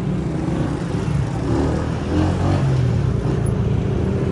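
Motorcycle engine running steadily, a low continuous rumble with road noise, plausibly the single-cylinder engine of a Honda 125 under way.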